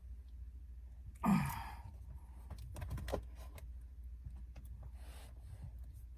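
A man's heavy sigh about a second in, breathy and falling in pitch, out of frustration at a stuck shift knob; a few faint clicks and taps follow.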